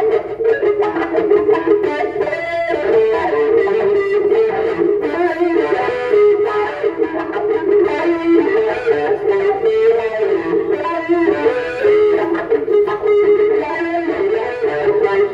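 Electric guitar playing a lead line of quick, changing notes.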